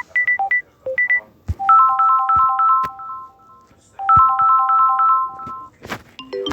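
Samsung Galaxy A12 ringtones playing one after another. A plinking tune of quick electronic notes cuts off about a second and a half in. A different ringtone follows, a fast repeating figure of chiming notes played twice with a short pause between. A sharp click comes near the end, just before the next tone starts.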